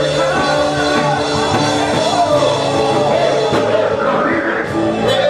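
Loud church worship music: a band with a bass line of held notes under sustained chords, and voices singing over it.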